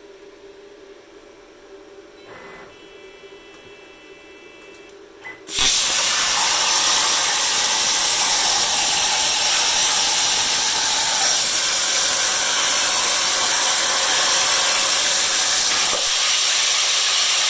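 CNC plasma cutter torch firing about five and a half seconds in with a sudden loud, steady hiss as the arc cuts a circular hole in metal plate. A faint steady hum comes before it, and the hiss eases slightly near the end.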